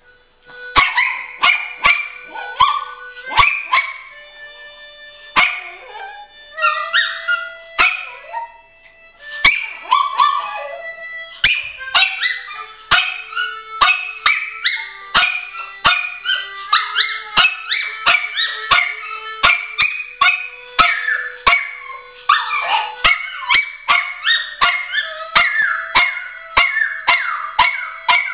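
Harmonica playing the blues while a black-and-white Pomeranian howls along with it, over sharp regular taps about two a second.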